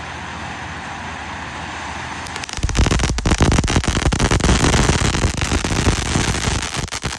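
Ground firework fountain hissing steadily, then about two and a half seconds in breaking into loud, dense crackling.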